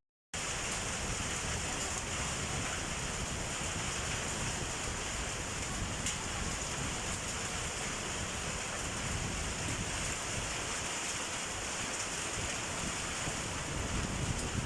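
Heavy downpour of rain mixed with hail, a steady even hiss.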